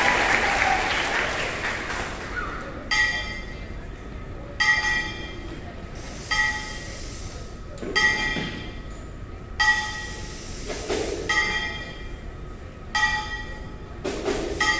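Applause dies away, then a high-school marching band sounds one short held chord over and over, each lasting about a second and starting a little under every two seconds, cutting off sharply each time.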